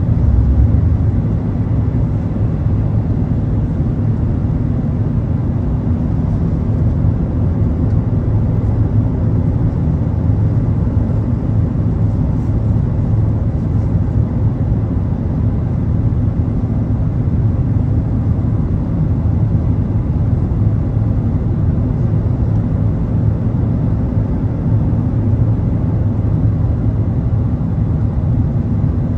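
Steady low rumble of jet engine and airflow noise inside the upper-deck cabin of an Airbus A380-841 with Rolls-Royce Trent 970 engines, holding level throughout.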